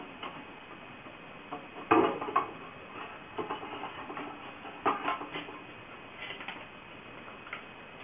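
Irregular clicks and light rattles of wires and a hook being handled at the top of a maypole braider, with the loudest clatter about two seconds in and another cluster about five seconds in.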